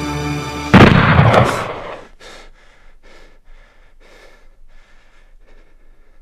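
Music cuts off at a single loud handgun shot about a second in, which booms and fades over about a second. Faint, quick breathing follows, about two breaths a second, as of someone jolted awake from a nightmare.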